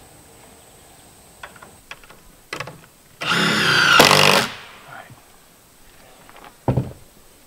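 A power drill runs for about a second and a half, driving a fastener into a board, after a few light knocks of handling lumber. A short thump follows near the end.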